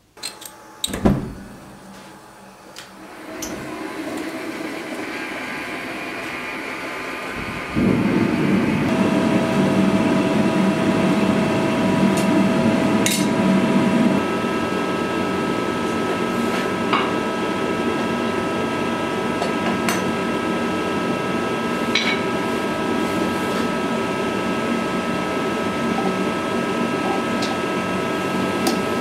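Gas forge with its blower running, a steady rushing noise with a faint hum, which builds a few seconds in and steps up sharply about eight seconds in. A couple of sharp knocks of steel near the start and a few light clicks later.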